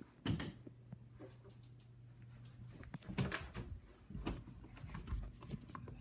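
Soft, irregular thumps and rustling from a handheld phone being carried while walking, with a faint low hum that fades out about halfway.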